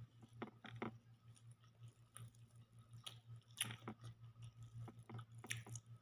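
Faint sounds of eating by hand: chewing, with scattered short clicks and smacks, over a steady low hum.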